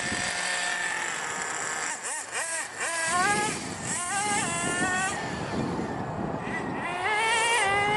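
Small nitro glow engine of a remote-control car running and revving, its high-pitched note rising and falling several times as the throttle is worked.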